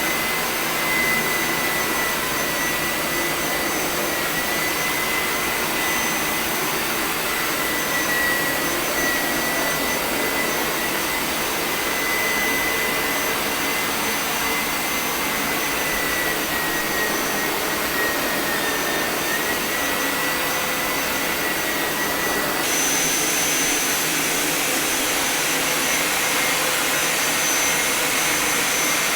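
A household carpet-washing machine (a carpet extractor) running steadily, with a vacuum-like motor noise and a high whine that wavers slightly in pitch. The whine fades and the tone changes a little about three-quarters of the way through.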